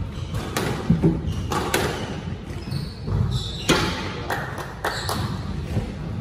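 Squash rally: a string of sharp, irregularly spaced knocks as the racket strikes the ball and the ball hits the court walls.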